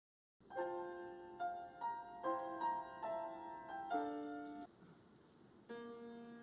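Piano playing the introduction to a choir anthem: a phrase of chords and melody notes struck about every half second, a short pause about four and a half seconds in, then a new chord.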